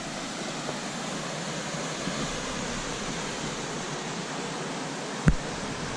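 Steady rushing of a river waterfall heard from above. A single sharp thump comes about five seconds in.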